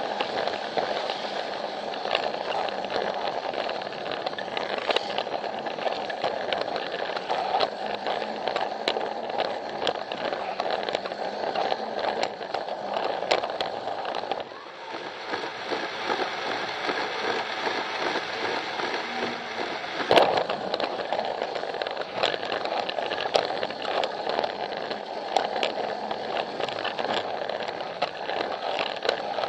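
Plarail battery-powered toy train running on plastic track, heard close up from on board: the small motor and gears whirr steadily while the wheels click irregularly over the track. The sound dips briefly about halfway, and there is one sharp, louder clack about two-thirds through.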